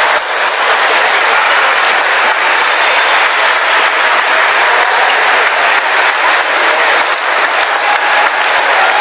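Large crowd applauding steadily, a dense mass of clapping.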